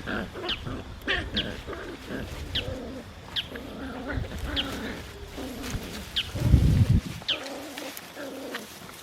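Birds calling: about eight short, sharp falling chirps over lower drawn-out cooing sounds, with a loud low rumble shortly after six seconds in.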